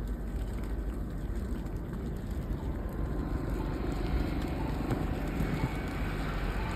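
Steady low rumble of a vehicle on a snowy road, mixed with wind noise on the microphone.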